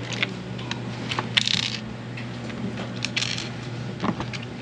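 Small clicks and two short scrapes of a screwdriver and screws being worked while a sous vide circulator's housing is taken apart, over a steady low hum.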